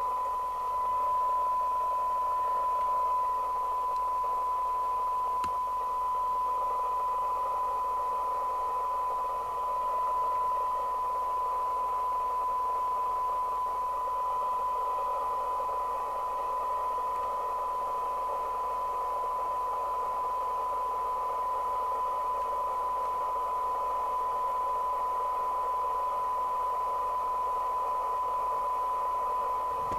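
A steady test tone with hiss from a Radiomobile CB202 UK FM CB radio's receiver audio: a weak, noisy test signal being received while the receiver is aligned for best SINAD sensitivity.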